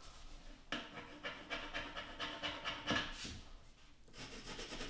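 Pencil scratching along the wall as a line is traced, in a run of quick strokes that pauses a little after three seconds and starts again about a second later.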